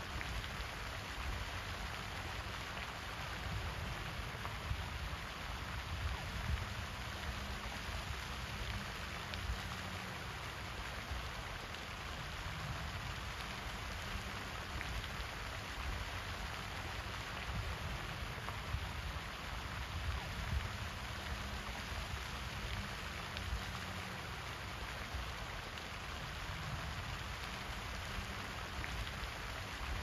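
Pond spray fountain: its jet of water falls back onto the pond surface in a steady, even splashing hiss that does not change, with an uneven low rumble underneath.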